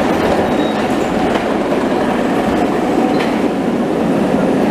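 An articulated streetcar passing close by on street track, its wheels running on the rails with a steady, loud rumble.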